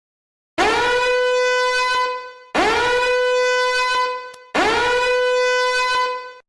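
A horn-like sound effect sounded three times, each blast about two seconds long, scooping up in pitch into a steady held note and then cutting off.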